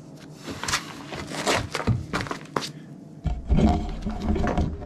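A run of clanks and scrapes over two or three seconds, which the man takes for the heavy steel chain on the cave's entrance ladder moving by itself; then a low rumble of the camera being handled.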